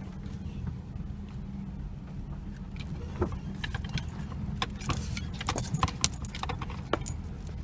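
A vehicle running at low speed with a steady low rumble, overlaid by scattered clicking and jingling rattles that come thickest a little past the middle.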